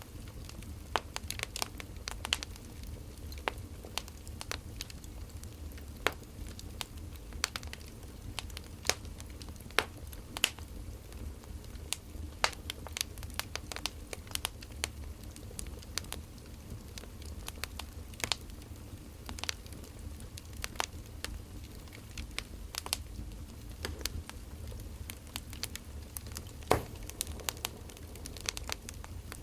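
Burning firewood crackling, with irregular sharp pops over a low, steady rumble.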